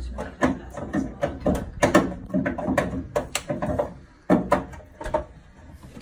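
Vaillant gas boiler clunking and banging in a fast, irregular run of knocks, fewer near the end. The banging comes from air in the boiler and heating system after radiators were taken off and the system drained.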